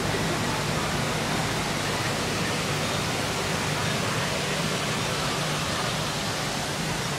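Water rushing steadily through a canal lock, with a faint low hum underneath.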